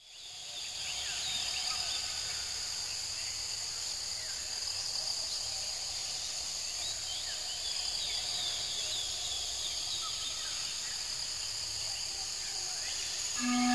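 Outdoor nature ambience fading in: many short bird chirps and calls over a steady high hiss.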